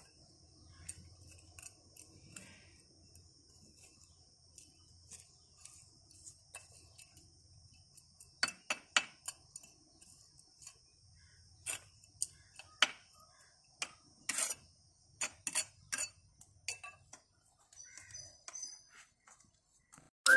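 Small metal hand trowel scraping and digging into potting soil in a plant pot, a run of sharp scrapes and clicks that starts about eight seconds in and goes on for several seconds. Under it, a steady high insect trilling fades out about midway.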